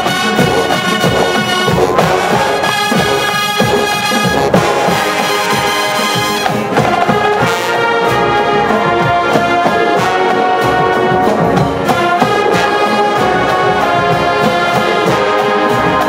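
Marching band playing loudly: trumpets and trombones carry sustained chords over a steady drum beat.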